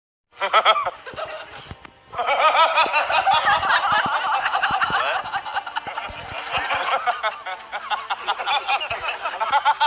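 High-pitched laughter from overlapping voices: a short burst, then a longer, denser stretch from about two seconds in that cuts off suddenly at the end.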